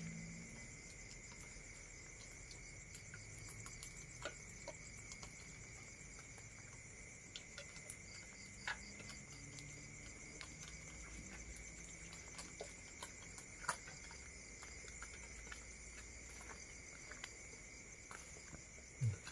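Steady chorus of night insects, a continuous high chirring at two pitches, with a few faint clicks and knocks scattered through it, the clearest about nine and fourteen seconds in.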